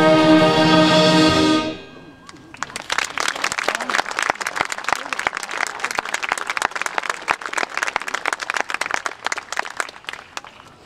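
A concert band holds a final chord and cuts off about a second and a half in. After a short pause, audience applause follows and dies away near the end.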